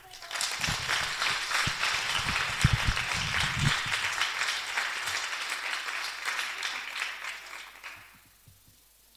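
Audience applauding, a dense patter of many hands clapping that builds just after the start and dies away about eight seconds in, with a few low knocks in the middle.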